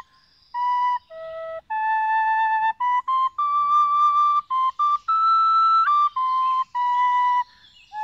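Music: a slow melody of long held notes on a flute-like wind instrument, with a few quick short notes in the middle. It starts about half a second in and pauses briefly near the end.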